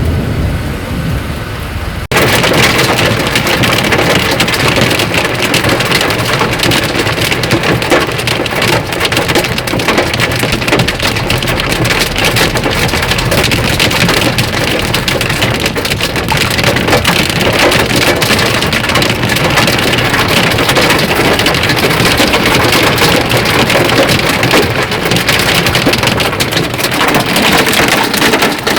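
Heavy rain in a thunderstorm: a dense, steady hiss of drops pelting hard surfaces. About two seconds in it jumps suddenly louder.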